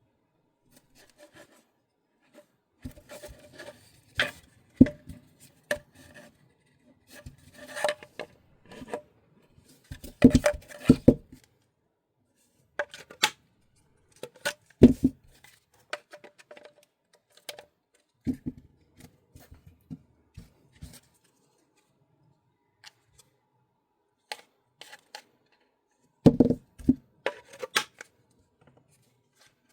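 Hands handling and adjusting plastic airsoft rifle stocks: irregular clicks, knocks and rubbing. Louder clusters of clatter come about ten seconds in, around fifteen seconds, and near the end.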